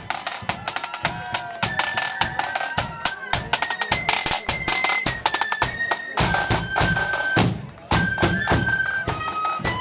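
Marching flute band playing a tune: flutes carry the melody in held, stepping notes over the steady beat of snare drums and a bass drum.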